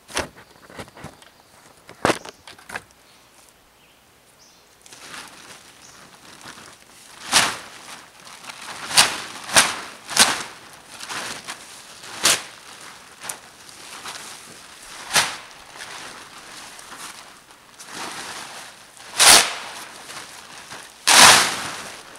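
Blue plastic tarp crackling and rustling in loud irregular bursts as it is pulled off a shelter's roof frame, preceded by a few sharp snaps as a knife cuts the cord lashing the tarp.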